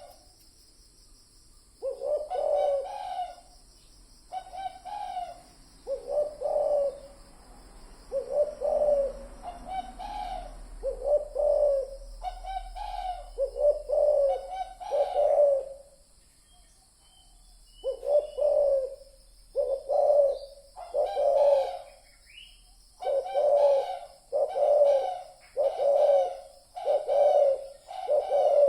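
Spotted dove cooing: a run of short, repeated coo phrases with brief pauses between them, coming faster toward the end. A steady high-pitched whine runs underneath.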